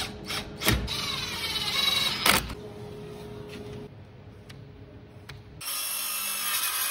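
Workshop tool sounds: sharp clicks and a short whirring as a screw goes into a panel edge, then, from about a second and a half before the end, a cordless Makita circular saw cutting through the wooden slat panel with a steady high-pitched noise.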